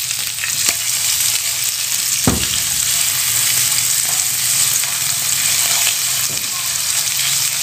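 Ground garlic-and-turmeric spice paste sizzling steadily in hot oil in a nonstick pan with Indonesian bay leaves and lemongrass, stirred with a silicone spatula. The paste is being sautéed until the raw turmeric smell cooks off. There is one sharp knock about two seconds in.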